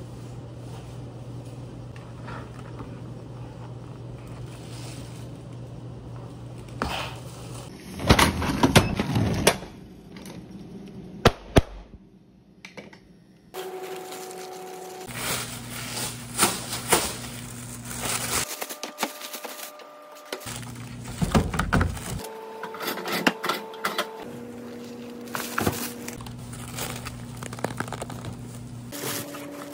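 Kitchen cooking and packing noises. A steady low hum runs under light scraping as a spatula works food in a pan on a gas stove. About eight seconds in there is a loud clatter, followed by a run of clicks and knocks as black plastic takeout bowls and lids are handled and stacked.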